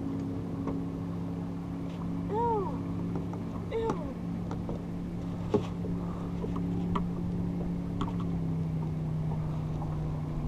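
Steady machine hum from a bass boat, with a few light clicks and knocks about halfway through and later.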